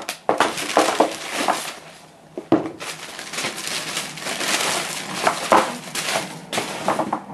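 White tissue paper in a cardboard shoebox rustling and crinkling as hands fold it back from the shoes, with a sharp knock about two and a half seconds in.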